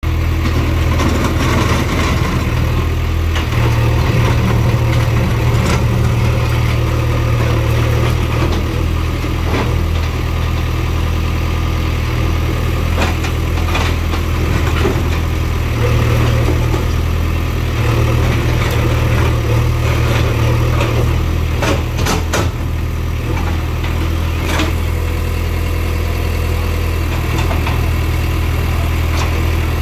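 JCB 3DX backhoe loader's diesel engine running steadily while the backhoe arm works, with scattered sharp clanks of the bucket on broken concrete rubble, several close together about three-quarters of the way through.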